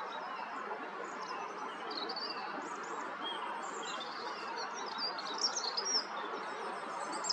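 Small songbird singing high, thin chirps and short twittering phrases, louder about five and a half to six seconds in, over a steady background noise.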